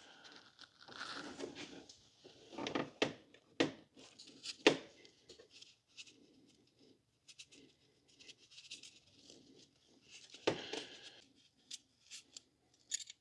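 Thread-insert installation tool turned by hand, screwing a coiled-wire thread insert into a tapped hole in an aluminum cylinder head. Faint, scattered clicks and scrapes, with a nearly silent stretch in the middle.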